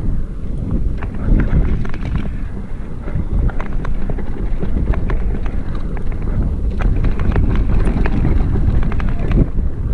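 Mountain bike descending a rough dirt trail at speed: a steady rumble of wind on the microphone, with the bike rattling and knocking over the bumps in many short, sharp clicks.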